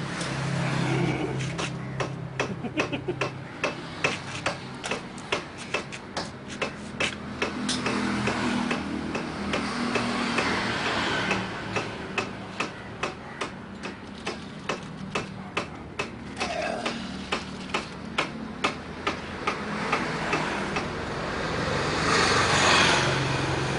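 Sharp clicks or taps, about one to two a second, over steady roadside traffic noise.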